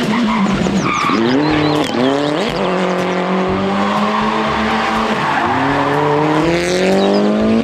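Racing car engine revving up through the gears: its pitch climbs, drops back at each shift, holds steady, then climbs slowly again. Short tyre squeals come in the first few seconds.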